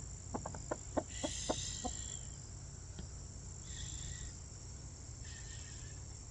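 Backyard hen, which the owner calls stressed out, giving a quick run of short low clucks in the first two seconds, then two soft, drawn-out higher calls. A steady high thin tone sounds underneath throughout.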